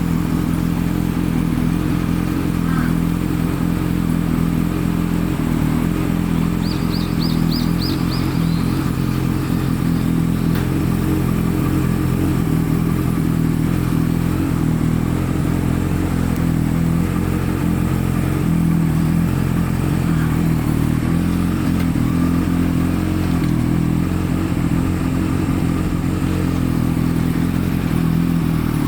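Kawasaki Z1B's air-cooled 903 cc inline-four running steadily at idle through short exhaust pipes.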